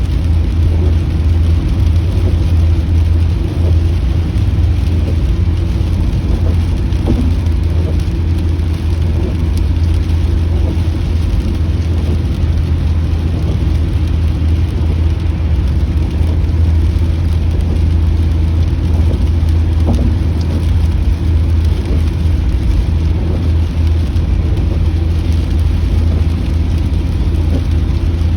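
Inside a moving car in the rain: a steady low road and engine rumble under an even hiss of rain on the car.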